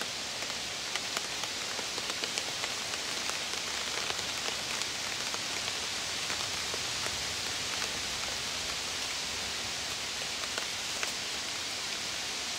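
Steady rain falling in woodland, with single drops ticking close by.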